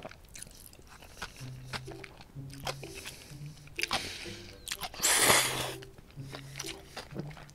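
Close-miked slurping and chewing of spicy buckwheat noodles (makguksu), with wet mouth clicks. The longest and loudest slurp comes about five seconds in.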